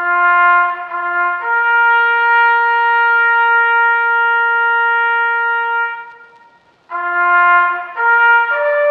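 Background music: a solo trumpet plays a low note twice, then a long higher note held for about four seconds that fades away. After a brief pause it starts again and steps up through three rising notes.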